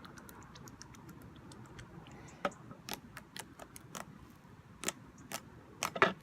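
Sticky Elmer's glue slime being kneaded and stretched, giving irregular sharp clicks and pops, with a quick cluster of louder pops near the end.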